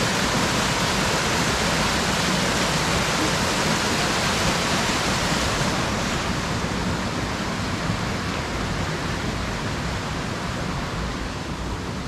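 Steady rushing roar of Hardraw Force waterfall, a dense hiss with no breaks; about halfway through it becomes a little quieter and duller.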